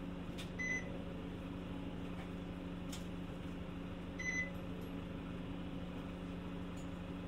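Steady engine hum heard inside a city bus's cabin, with two short high beeps about three and a half seconds apart.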